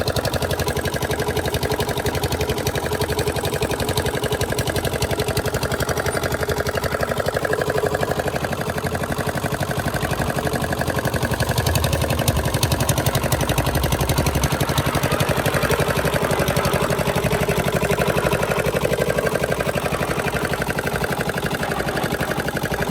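A construction machine's engine running steadily with a rapid, even pulsing beat.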